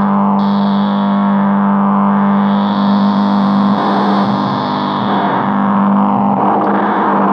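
Electronic drone from a K176LA7 (CD4011-type) CMOS NAND-gate tone generator, run through software effects: a steady low buzzing tone with a distorted, hissy upper layer that swells and fades over a few seconds.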